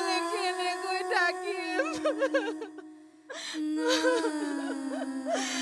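A woman wailing in grief: long drawn-out crying cries that waver and slowly fall in pitch, broken by one short pause for breath about three seconds in.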